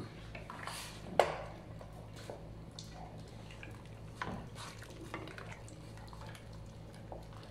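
Wooden utensil stirring and knocking in a stainless steel cooking pot, with scattered clicks and knocks, the sharpest about a second in. A steady low hum runs underneath.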